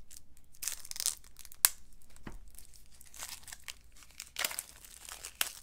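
Plastic shrink-wrap crinkling and tearing as a deck of game cards is unwrapped, with a sharp click about a second and a half in.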